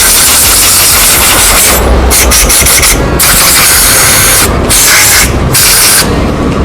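Compressed-air blow gun blasting air in loud hissing bursts, blowing cleaned brake caliper parts dry, with several short breaks between blasts.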